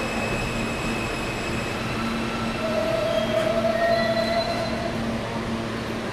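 R160 subway train pulling into the station and braking to a stop, with a steady electric whine over rumble and a squeal from about two and a half to five seconds in as it halts.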